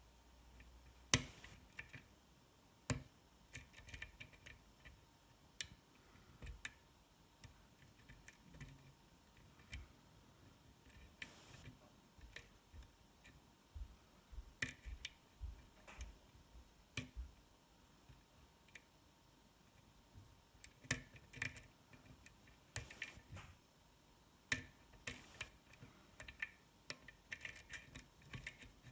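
Lock pick working the pins of a DOM S cylinder lock under tension: faint, irregular small clicks and ticks of metal on metal, spaced unevenly, as the picker tries to set the spool pins.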